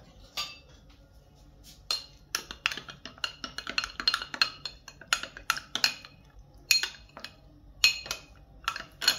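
A metal utensil knocking and clinking against glass or ceramic kitchenware. It is a quick run of ringing strikes at about three a second, then a few separate strikes near the end.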